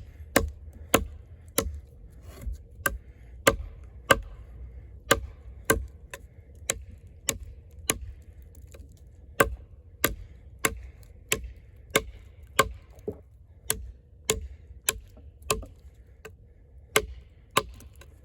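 A large fixed-blade camp knife, the Eafengrow EF-143 with its thick AUS-10 steel blade, chopping into a log. The sharp strikes come at a steady pace of a little under two a second, with two short pauses.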